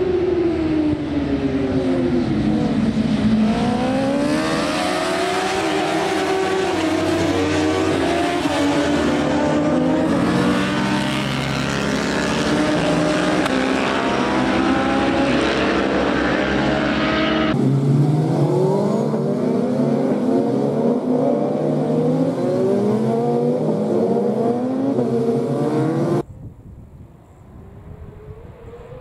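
A pack of racing motorcycles going past flat out, their engines revving up and down in pitch through gear changes and corners, several bikes overlapping. The sound changes abruptly twice, and for the last few seconds it is much quieter.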